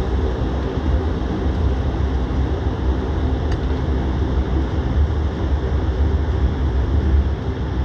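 Steady airliner cabin noise while taxiing: a deep, even rumble of the engines and rolling gear under a constant hiss, heard from inside the cabin.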